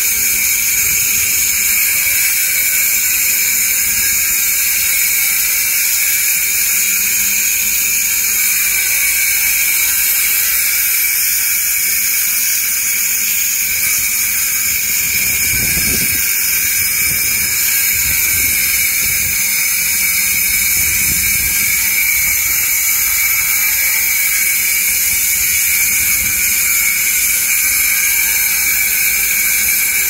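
Hand-held angle grinder with a diamond blade cutting concrete: a loud, steady, high-pitched grinding noise that holds an even level, with a short spell of low rumbling about halfway through.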